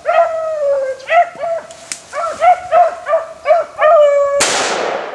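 Beagles baying on a rabbit's trail, mixing long drawn-out howls with short chop barks. About four seconds in, a single loud shotgun blast cuts across them and echoes away.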